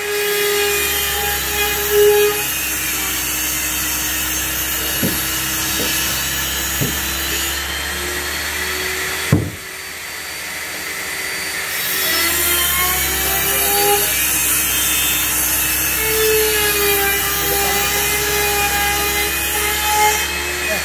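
Handheld electric trim router whining as it trims the plywood edges of a subwoofer cabinet. About nine seconds in there is a sharp knock and the level drops, then builds back up over the next couple of seconds, the pitch sliding up as it gets back to speed.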